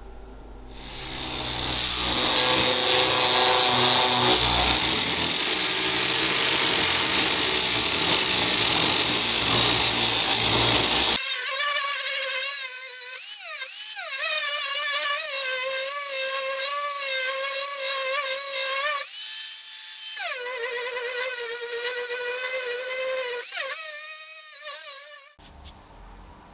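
Steel sword blade being ground: about ten seconds of loud, harsh grinding noise, then an angle grinder's whine that dips in pitch as the disc bites into the steel and rises when it is lifted off, until the tool winds down near the end.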